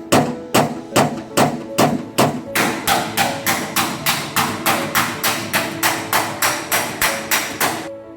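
Hammer striking tractor sheet metal again and again, knocking out dents, at a steady pace of about two to three blows a second that quickens slightly partway through and stops just before the end.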